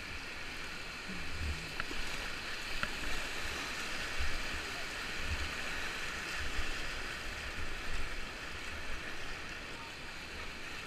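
Rushing whitewater of a river rapid splashing around an inflatable kayak, a steady hiss with irregular low thuds.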